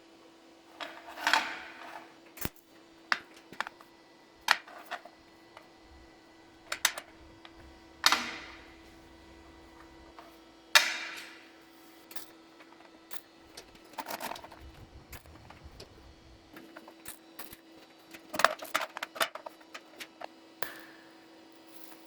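Small steel parts and tools being handled and set down on a workbench: irregular sharp metallic clinks and knocks, a few of them ringing briefly, with a cluster of quick clicks near the end. A faint steady hum runs underneath.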